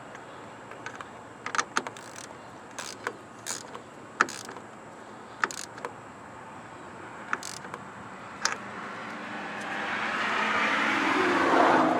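Hand tools working a battery cable terminal: a string of scattered metallic clicks and knocks, then a rasping noise that swells over the last few seconds.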